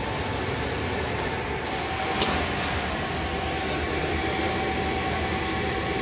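Steady drone of running machinery, with a faint constant tone through it.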